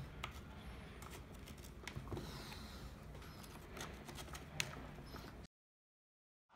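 Faint clicks and a light scrape of the Losi LST2 XXL2E's plastic front bulkhead plates being slotted by hand around the diff case. The sound cuts to dead silence about five and a half seconds in.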